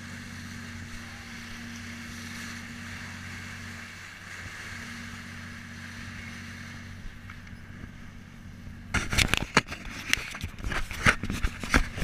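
A boat's engine runs with a steady low hum under a soft hiss of water and wind. From about nine seconds in, loud irregular knocks and rubbing come from the camera being handled.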